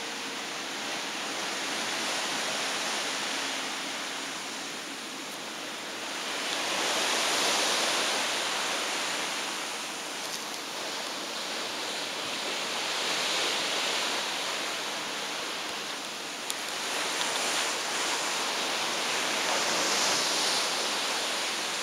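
Rushing hiss of sea water breaking white along the hull of a large cruise ship under way. It swells and eases three times.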